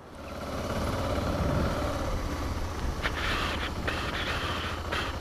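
Motorcycle engine running at low revs, swelling in over the first second and then holding steady.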